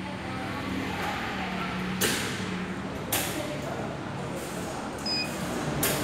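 Rotary monoblock bottle washing-filling-capping machine running steadily, with several sudden sharp bursts about two, three and six seconds in, and a short high tone about five seconds in.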